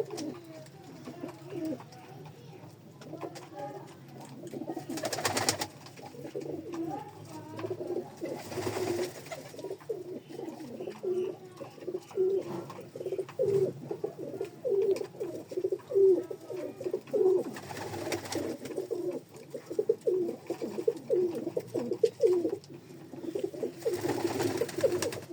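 Pigeons cooing continuously in low, rapidly repeated notes, with several birds overlapping. Four brief rushing noise bursts break in along the way.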